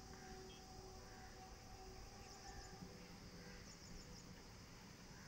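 Quiet outdoor ambience: insects chirping in short high trills that repeat every second or so, over a faint low rumble.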